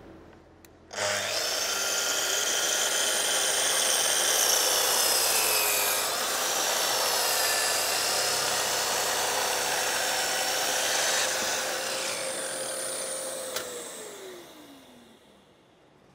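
Festool Kapex KS 60 sliding compound mitre saw starting up about a second in and cutting a 60-degree mitre through a thick laminated wood block, the motor whine steady under the noise of the blade in the wood. Near the end the motor is switched off and winds down with a falling whine.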